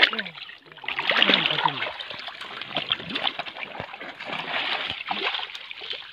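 Pond water splashing and sloshing in uneven bursts as people wade chest-deep and handle a fishing net and fish.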